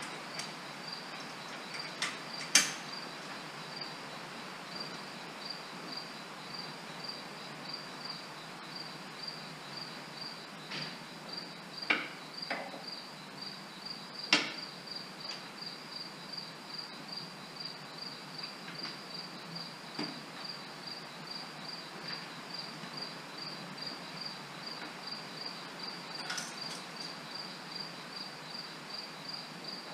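A cricket chirping steadily in evenly spaced, high chirps. Over it come a handful of sharp metal clanks and knocks from tractor hitch parts being handled, the loudest about two and a half and fourteen seconds in.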